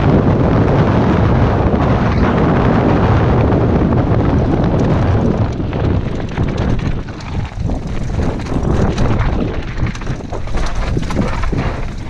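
Wind buffeting a helmet-mounted camera on a mountain bike descending at speed, a steady low rush. From about six seconds in it breaks up into the rattles and knocks of the bike running over rougher, rocky dirt.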